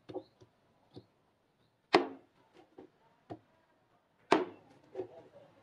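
A hand-forged knife chopping raw meat on bone against a round wooden chopping block. There are two hard chops, about two and four seconds in, with lighter knocks and taps of the blade between them.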